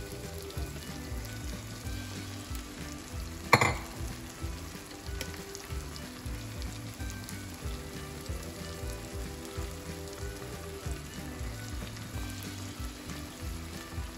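Menemen (eggs in tomato and pepper sauce) sizzling steadily in a frying pan as the eggs cook. A single sharp click stands out about three and a half seconds in.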